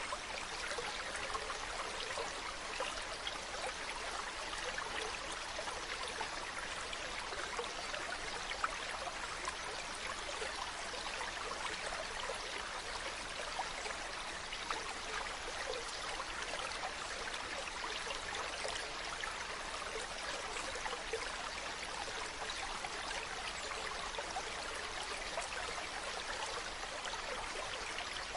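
Mountain stream running over rocks, a steady rush of water with fine splashing and trickling.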